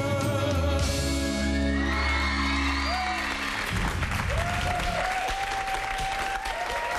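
A sung pop ballad duet with band ends on a held final chord about halfway through, and an audience then applauds and cheers, with whoops.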